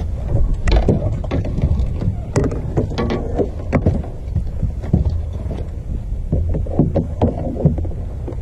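Fishing rods and tackle being handled in a small boat: irregular clicks and knocks over a steady low rumble of wind on the microphone.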